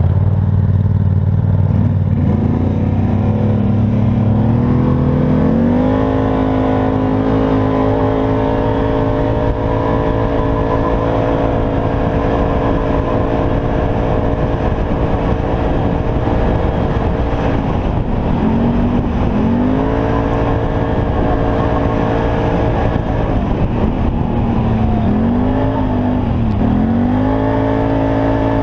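ATV engine running under throttle while riding: the revs climb about five seconds in and then hold steady, then dip and pick back up twice later on.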